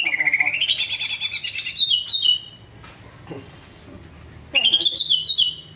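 Green leafbird (cucak ijo) singing. A long run of fast, warbled and trilled high phrases breaks off a little over two seconds in. After a pause, a second short burst of song comes near the end.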